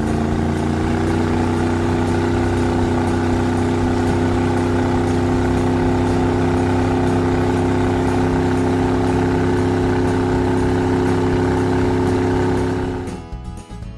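Cartoon engine sound effect for an amphibious tracked vehicle: a steady, loud engine hum that rises slightly in pitch at the start, holds level, then cuts off about a second before the end.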